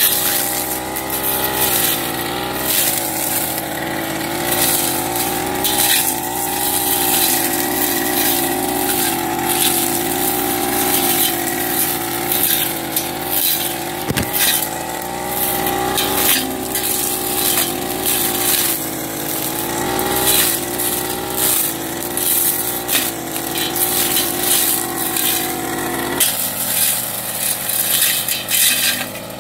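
Backpack brush cutter engine running at high revs, with rapid rasping swishes as the cutting head slashes through tall cogon grass. About three seconds before the end the engine note drops to a lower speed.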